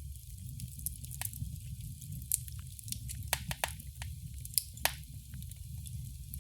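Wood fire in a fireplace crackling, with frequent sharp pops over a low steady rumble of the flames; a cluster of louder pops comes a little past the middle.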